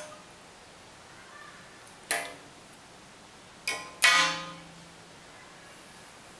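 Sparse plucked guitar notes of background music: four separate notes that each ring and fade, one right at the start, one about two seconds in, and two close together near four seconds in, the last the loudest.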